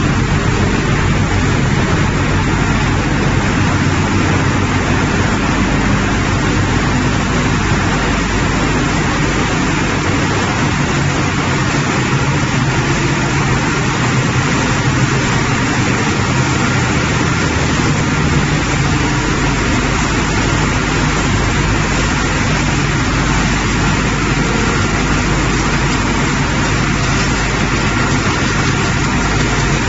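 Wood pellet production machinery running steadily: a loud, even mechanical noise with a low hum underneath.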